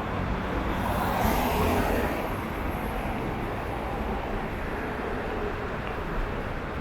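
Road traffic on a busy city street: a steady rush of passing cars, with one vehicle going by louder about a second in.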